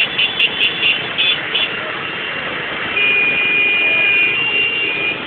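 A crowd of motorcycles in the street, sounding high-pitched horns over the running engines: several short toots at first, then one long held honk about three seconds in, with more shorter ones near the end.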